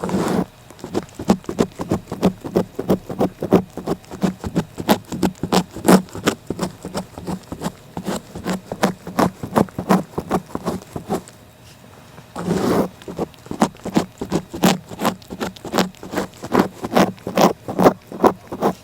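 A cat licking with its rough tongue in quick, even strokes, about three a second. The strokes stop for about a second near two thirds of the way through, then start again with a louder rustle.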